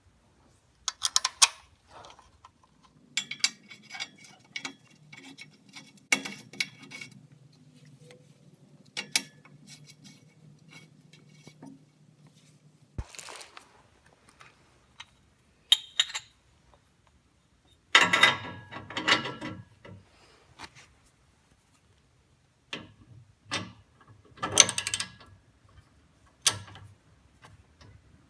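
Hand tools clicking and clattering in short runs, like a ratchet wrench being worked, as a new oxygen sensor is fitted. A low steady hum runs through the first half and cuts off suddenly with a click.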